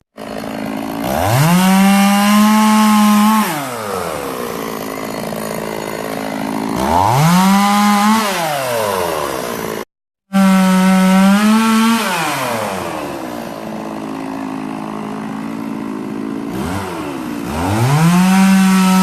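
Two-stroke chainsaw revving up to full throttle, holding a high steady pitch for one to two seconds, and dropping back to idle, four times over. The sound cuts out abruptly about ten seconds in and comes back already at full revs.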